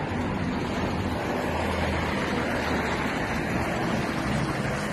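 Steady wind noise on the microphone, with a faint low hum underneath.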